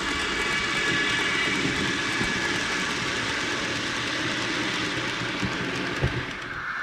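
H0-scale model freight train rolling past: a Trix BR 185 Traxx 2 electric locomotive with a digital sound decoder goes by, its motor tones fading over the first couple of seconds. A long string of hopper wagons follows, rattling over the track, with one sharp knock about six seconds in.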